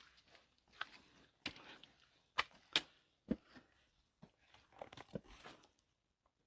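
Irregular crunches, scuffs and knocks of a hiker climbing a rocky mountain trail, a few sharper strokes in the middle.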